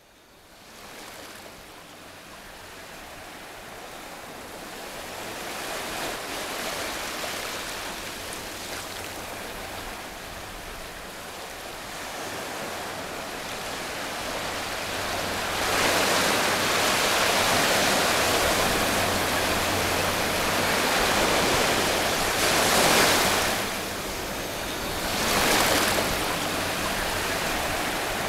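A rushing wash of noise like surf or running water, starting faint and building gradually. It grows louder a little past halfway, with two brief surging swells near the end.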